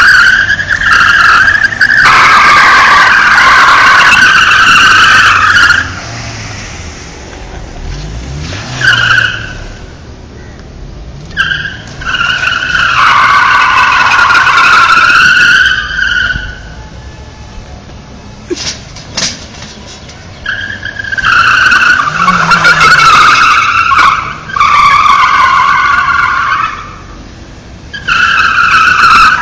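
Tyres of a Honda sedan squealing loudly in long, repeated bursts as the car spins donuts on paving. Between the squeals the engine is heard revving up and down.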